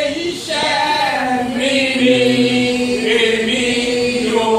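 Church congregation singing a Yoruba hymn together, several voices holding long notes.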